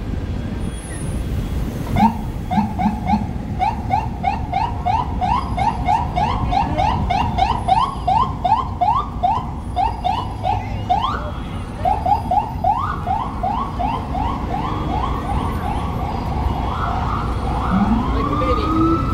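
Emergency vehicle siren sounding a fast yelp, quick rising whoops about three a second, switching near the end to a slower rising wail, over the steady hum of city street traffic.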